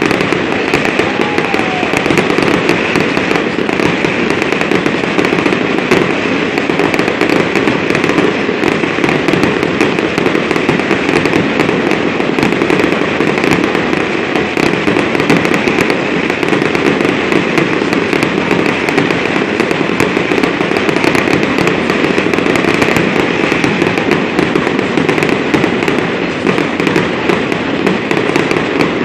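Fireworks going off in a continuous barrage of rapid crackling and popping, with no pause. The sound comes from aerial shells bursting overhead and ground fountains spraying sparks.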